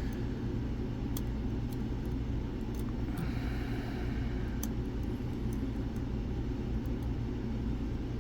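Steady low background rumble with a few faint, sharp ticks, the lock pick tools working the pins of a Mul-T-Lock-style dimple lock.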